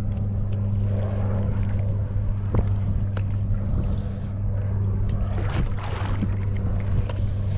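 Steady low hum under water and wind noise on a fishing kayak at sea. A couple of sharp knocks come about two and a half and three seconds in, and a splash-like hiss swells up around six seconds.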